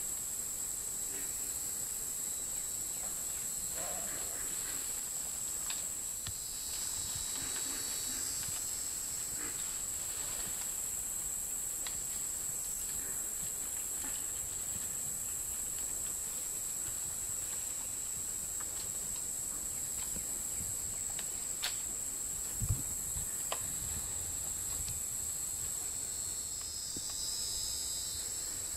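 Steady, high-pitched drone of an insect chorus. A fainter, lower trill comes and goes twice, and a few sharp knocks and a low thump come about three-quarters of the way in.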